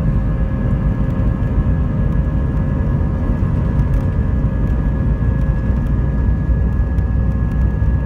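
Jet airliner engines and runway rumble heard from inside the cabin during the takeoff roll: a loud, steady low roar with a few steady whining tones over it.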